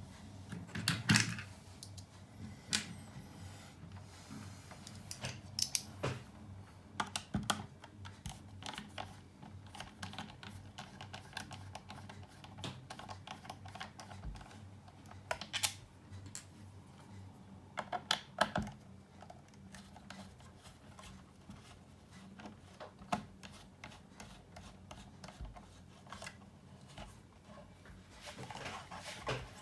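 Irregular small clicks, taps and scrapes of hands and tools working on the plastic casing and parts of a small electronics unit being taken apart. A few louder clacks come about a second in, around the middle and near the end, over a faint steady hum.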